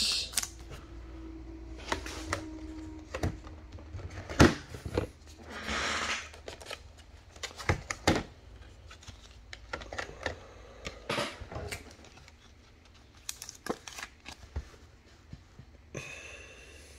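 A trading card in a soft plastic sleeve being handled and slid into a rigid plastic toploader: scattered taps and clicks of plastic and card on the tabletop, with a longer sliding rustle about six seconds in.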